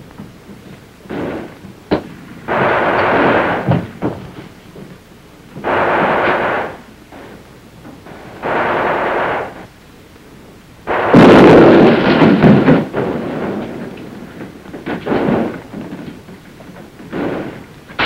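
Explosions and gunfire at intervals of a few seconds. The loudest and longest blast, about eleven seconds in, is a demolition charge blowing a hole through a building wall.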